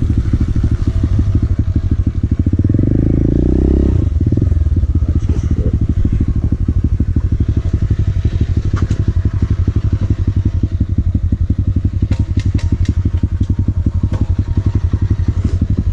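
Motorcycle engine idling with a steady, rapid pulse, with a short rev about three seconds in.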